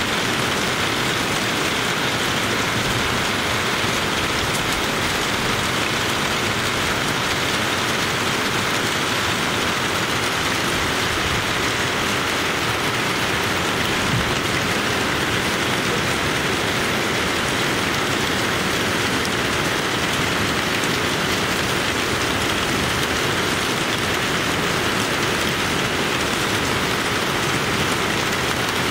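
Heavy rain pouring steadily onto broad banana leaves and a lawn, an even, unbroken hiss of downpour.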